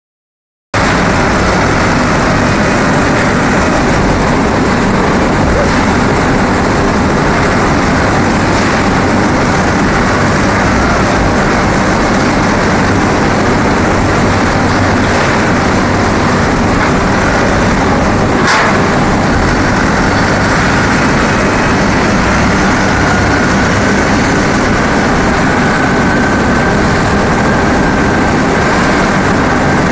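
Loud, steady running noise from aluminium dross processing machinery, with a thin high whine over it. There is a single sharp knock about eighteen seconds in.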